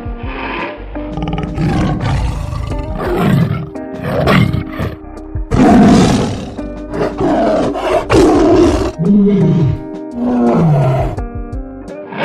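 A large animal's repeated low calls, several falling in pitch, over steady background music.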